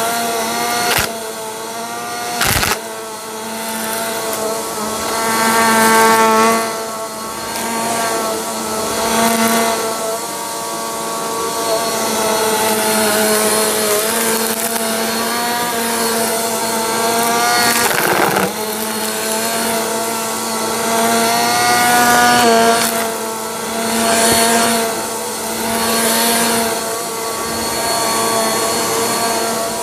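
Upright vacuum cleaner running on carpet, its motor hum drifting up and down in pitch as it is pushed and pulled. Sharp cracks near the start and about halfway through come from small rocks and other hard debris being sucked up.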